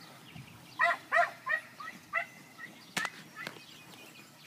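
A dog barking, a quick series of about five short barks that grow weaker, followed about a second later by two sharp clicks half a second apart.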